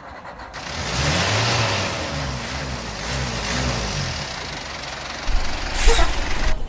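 Toy excavator engine sound rising and falling in pitch under a loud rushing hiss of sand pouring into a truck bed, with a sharp knock about six seconds in.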